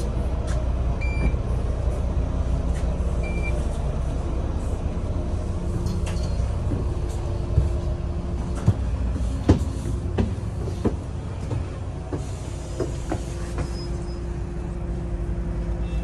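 Ride noise heard inside a double-decker bus on the move: a steady low engine and road rumble with a faint hum. Several sharp knocks and rattles from the bodywork come in the middle, and two short high beeps sound near the start.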